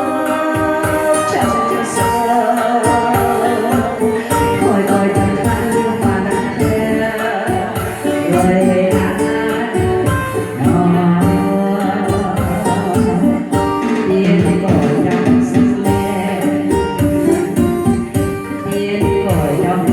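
A Vietnamese song playing, with a steady beat.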